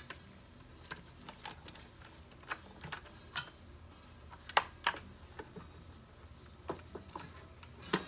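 Scattered, uneven small clicks and taps of plastic as gloved hands feed a headlight igniter cable back down into a plastic headlight housing.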